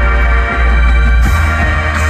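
High school marching band playing a loud held chord over a deep bass line that changes note twice.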